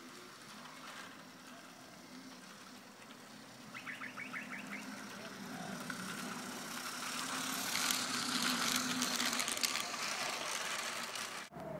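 HO-scale model train running on garden track, growing louder as it comes closer, with fast clicking of wheels over the rail joints. The sound cuts off suddenly near the end.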